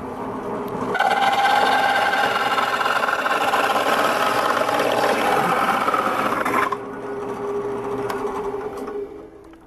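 Bench drill press spinning a hole saw that bites into a wooden skateboard deck about a second in, grinding through the wood for about six seconds to cut a wheel well. The saw then runs free with a steady hum that fades near the end.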